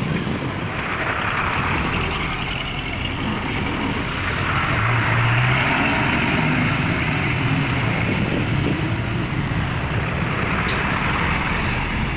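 Heavy diesel machinery running steadily, a low engine rumble under a broad hiss.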